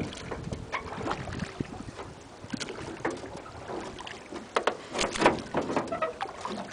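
Aluminium rowboat being rowed: oars dipping and splashing in the water, with irregular knocks, and wind on the microphone. A louder cluster of splashes and knocks comes about five seconds in.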